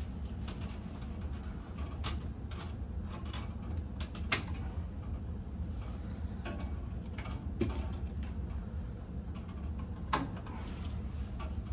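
Scattered clicks and light knocks of tools and wire being handled in an electrical breaker panel, the sharpest about four seconds in, over a steady low hum.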